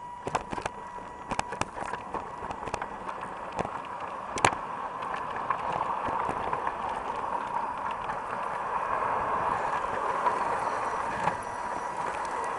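LGB garden-scale model train with a Mallet locomotive, heard from a camera riding on the train. Its wheels give a run of sharp clicks over rail joints and points in the first few seconds, the loudest about four and a half seconds in. Then comes a steady whirring rumble of motor, gears and wheels that slowly grows louder.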